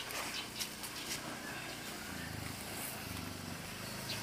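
A motor scooter's engine approaching, a low hum that grows louder from about halfway through. Before it, a few light clicks and knocks as a car door is opened.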